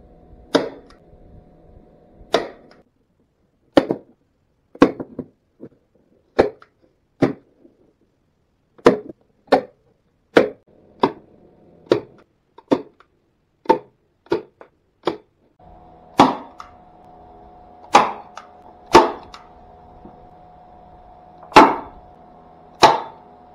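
Hand staple gun firing staples into glued wooden barrel staves, about twenty sharp snaps spaced roughly a second apart, to hold the staves together while the glue dries.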